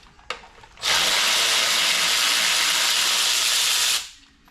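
A power tool runs steadily for about three seconds, starting about a second in and cutting off near the end, most likely spinning fasteners off during an LS engine teardown.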